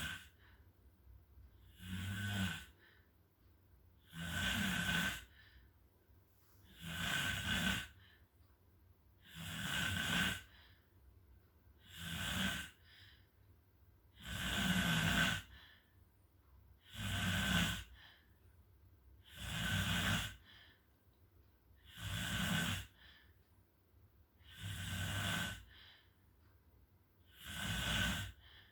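A sleeping person snoring: a regular snore about every two and a half seconds, about a dozen in all, with quiet breaths between.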